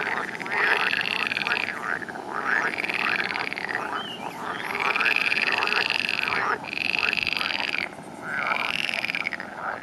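Frogs croaking: a run of about five calls, each roughly a second long, with short gaps between them.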